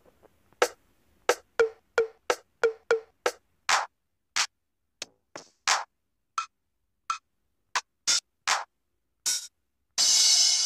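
Sampled drum hits from a phone drum pad (octapad) app, tapped one at a time in an uneven pattern, a run of them with a deeper drum-like thud. About ten seconds in, a cymbal crash rings out and slowly fades.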